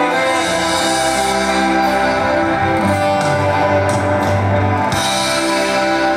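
Music: the song's accompaniment, with guitar over steady held chords.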